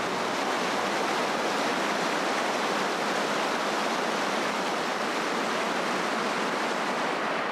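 Steady rush of tidal water pouring and cascading off a reef as the tide drops.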